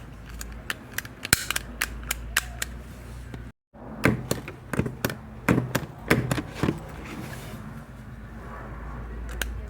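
Stapler being pressed again and again, giving sharp snapping clicks, some single and some in quick runs. The sound drops out completely for a moment about three and a half seconds in.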